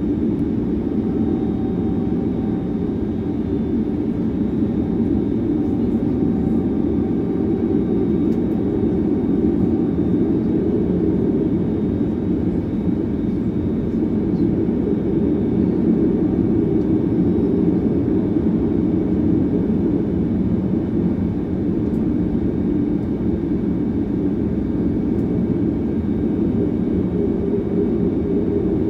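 Airliner cabin noise during taxi: the jet engines running at low thrust, a steady, even drone.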